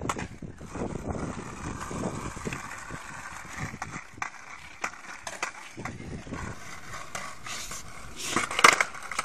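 Skateboard wheels rolling over asphalt and then concrete pavement: an uneven rolling rumble with scattered clicks, and a louder clattering burst near the end.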